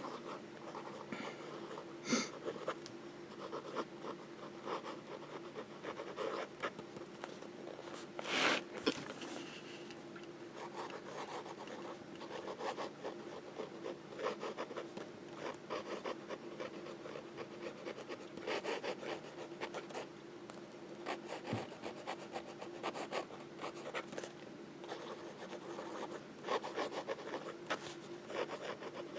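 Fountain pen nib moving over journal paper in cursive handwriting: faint, soft scratching strokes, with one brief louder sound about eight seconds in.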